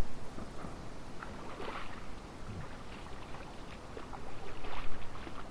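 Splashing and sloshing of shallow river water in irregular bursts, louder near the start and again about five seconds in.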